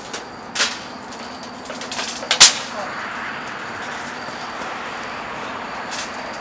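Two sharp smacks from wrestling on a trampoline ring: a softer one under a second in and a much louder one about two and a half seconds in, over a steady hiss.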